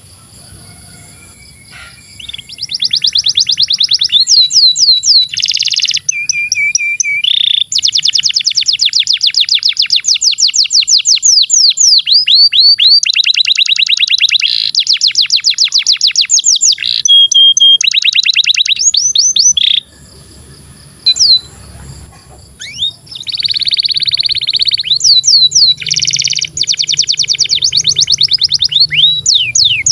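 Canary singing a long, fast song of rapid trills and rolls of repeated notes. It starts about two seconds in and pauses briefly about two-thirds through.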